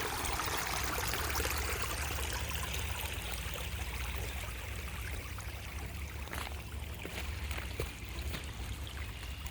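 Creek water running and trickling over small man-made waterfalls, a steady splashing rush that grows a little quieter over the last few seconds.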